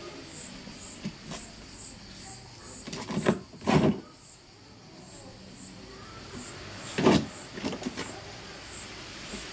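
A puppy nosing and pushing an upturned plastic bucket on a tiled floor, giving two short clusters of hollow knocks, about three seconds in and again about seven seconds in. Behind them runs a steady high-pitched buzzing hiss that pulses about twice a second.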